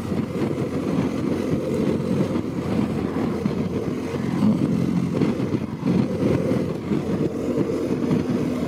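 BMW GS boxer-twin motorcycle under way, its engine running steadily under an even rush of wind and road noise.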